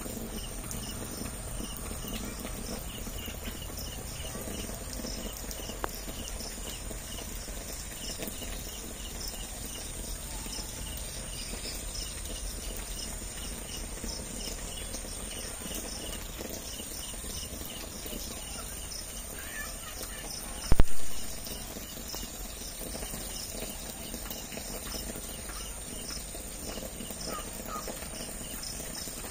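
Insects chirping steadily, a few chirps a second, over a constant hiss of outdoor ambience. One sudden loud knock about two-thirds of the way through.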